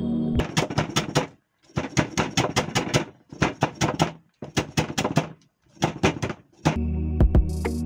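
Steel cleaver chopping kaffir lime leaves on a wooden cutting board: quick knocks of the blade on the wood, about six a second, in five short runs with brief pauses between. Background music comes back near the end.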